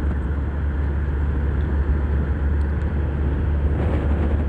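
Steady drone of a moving vehicle's engine and road noise, heard from on board as it paces the riders at about 27 miles an hour.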